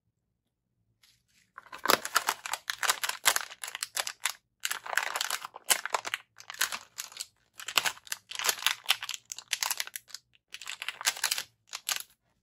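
Packaging of an electronics starter kit being handled and opened: crinkling, rustling and tearing in a series of bursts with short pauses, starting about a second and a half in.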